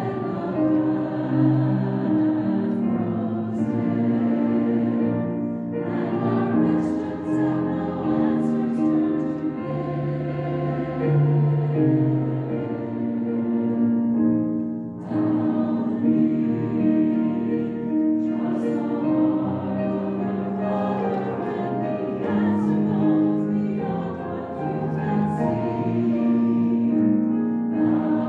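Choral music: a choir singing slow, held chords, the phrases breaking off briefly about every nine seconds.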